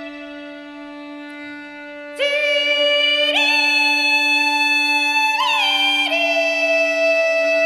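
Bagpipe music: a steady drone under slow, long melody notes. The melody becomes much louder about two seconds in and steps through a few held notes.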